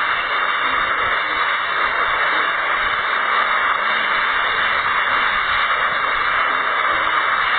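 Cyclone-force wind and heavy rain, heard as a steady, even hiss.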